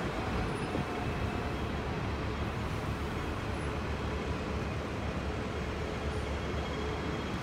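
Busy city-street traffic: a steady low rumble of buses and cars driving past.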